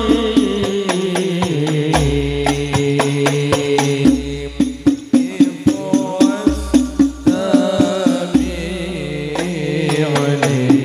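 Sholawat sung by male voices through microphones, with rebana frame drums beating a steady rhythm and deep bass drum notes underneath.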